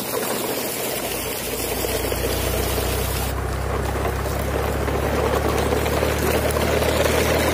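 A truck engine running steadily; its low rumble comes in about a second in and holds even.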